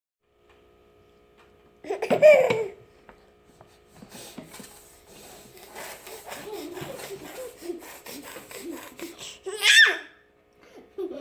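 A baby laughing: a loud burst of laughter about two seconds in, softer giggles and babbling, then a loud, high-pitched squeal near the end.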